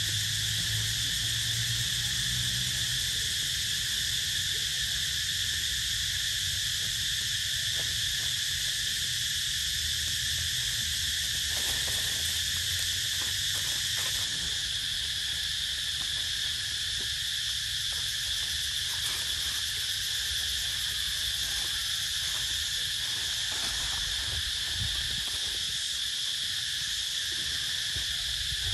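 A steady, high-pitched insect chorus drones without a break, with a low rumble underneath.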